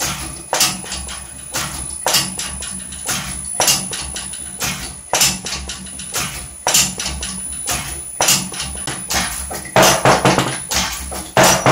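Background music with a slow percussive beat, sharp hits about every second and a half over a steady bass line, and a quicker run of hits near the end.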